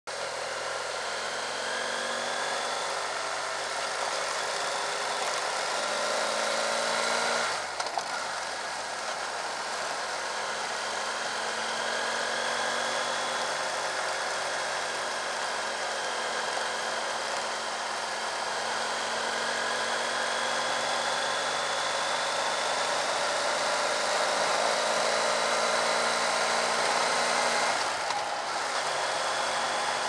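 BMW F800GS motorcycle's parallel-twin engine running under way on a gravel road, with steady wind and tyre noise. The engine note climbs and breaks off briefly twice, at gear changes, about a quarter of the way in and near the end.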